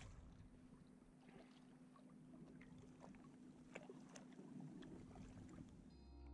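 Faint water sounds around a kayak on calm water, with scattered small drips and ticks. Music fades in near the end.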